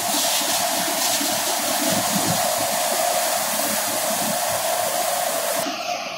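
Harnam paddy threshing machine running: a loud, steady whirring drone with a constant hum, straw and grain rushing through it. Near the end the sound turns duller.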